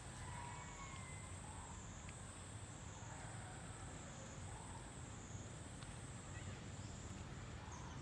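Outdoor ambience: a high-pitched drone wavers slowly up and down in pitch, about once a second, over a low steady rumble, with a few faint chirps; the drone stops near the end.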